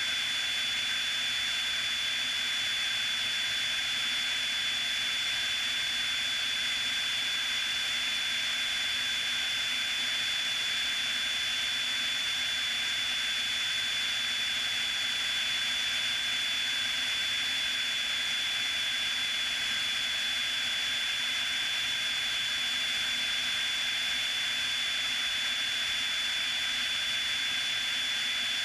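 Steady in-flight noise of a Piper Cherokee's single piston engine and propeller in cruise, heard as an even hiss with a steady high-pitched whine over it.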